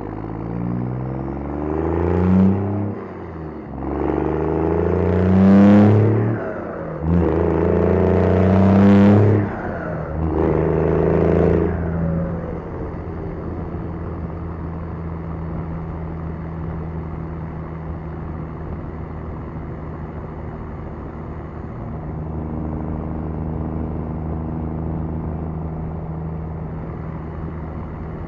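Cummins turbo-diesel inline-six in a 2002 Dodge Ram 2500 with a 5-inch exhaust and single 8-inch stack, accelerating through four gears of its six-speed manual. The pitch climbs in each gear and drops at every shift. After about twelve seconds it settles into a steady, quieter drone.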